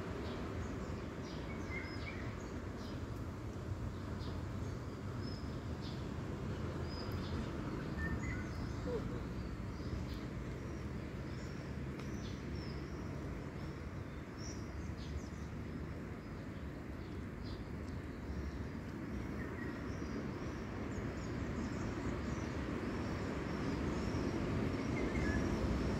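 Outdoor ambience: small birds chirping in short calls here and there over a steady low background noise.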